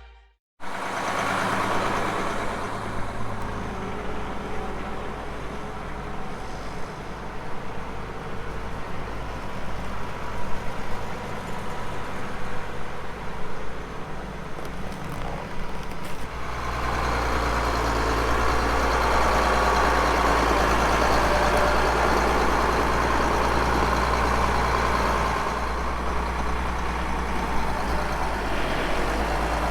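A vehicle engine running. About halfway through, the sound changes: it grows louder and a steady low hum comes in.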